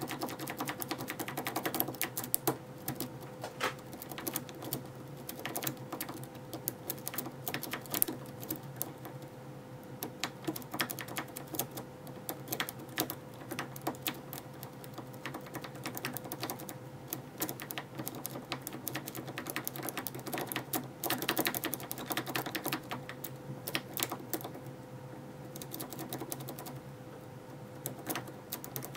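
Rapid irregular metallic clicking and rattling of a steel rake being jiggled in a Kwikset SmartKey lock's keyway under light tension. The rake chatters against the lock's wafers and sidebar as it is worked in and out.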